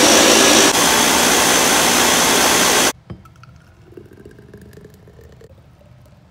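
Countertop blender running at full speed on a green smoothie, a loud steady whir that cuts off suddenly about three seconds in. A knock follows, then faint sounds of the thick smoothie pouring into a glass jar.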